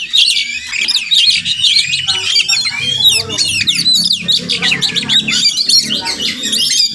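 Oriental magpie-robin singing: a rapid, unbroken run of varied whistles and chirps, rising and falling in quick succession.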